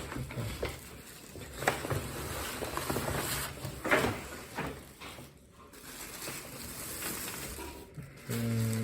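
Rustling and crinkling of packaging as a bag is pulled out of a large box and handled, with a couple of sharper crackles or knocks.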